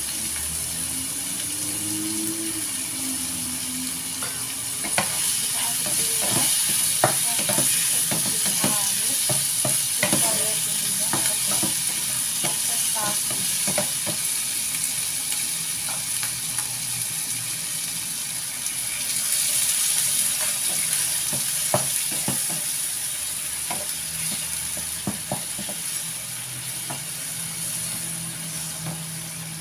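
An egg tofu stir-fry sizzling in a non-stick frying pan, its sauce and a splash of water bubbling. A wooden spatula scrapes and knocks against the pan in quick irregular clicks as the food is turned, mostly from about five seconds in until near the end.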